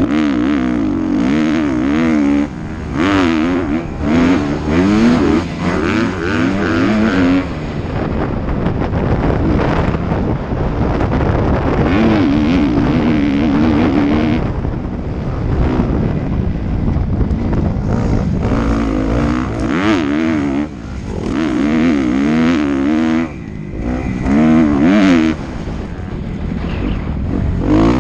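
Motocross dirt bike engine being ridden hard, its pitch rising and falling over and over as the rider accelerates, shifts and backs off the throttle.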